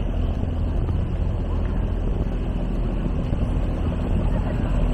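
A small passenger boat's engine running steadily at low revs as it comes alongside the pier, with wind on the microphone.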